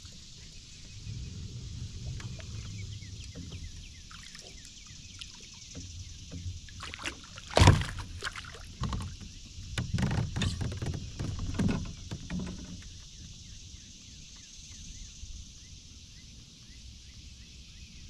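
Small bass splashing at the surface beside a kayak as it is brought in and lifted from the water: one sharp, loud splash about eight seconds in, then a run of irregular splashes for a few seconds before it settles.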